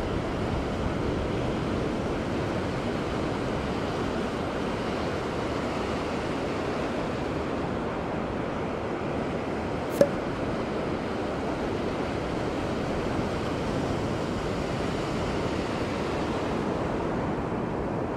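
Surf on a sandy beach: a steady rush of waves washing in at the shoreline, with one sharp click about halfway through.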